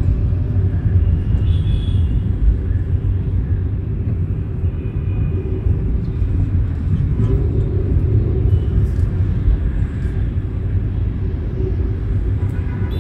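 Steady low rumble of road and engine noise heard from inside a moving car driving in city traffic.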